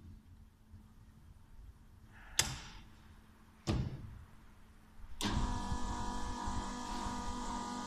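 Two sharp knocks as the glass-topped frame of a Planoprint 50 plate exposure unit is closed and latched. About five seconds in, the unit's motor starts and runs with a steady hum.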